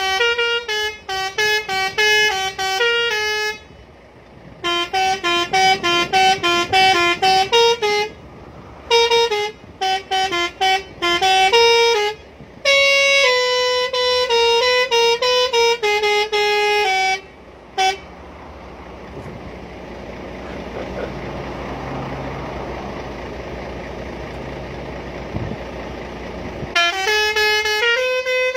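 Scania lorry's telolet horn, a multi-tone musical air horn, playing a melody of short stepping notes in quick runs with brief pauses. The tune stops about 18 seconds in, leaving a steady low rumble for several seconds, and the horn melody starts again near the end.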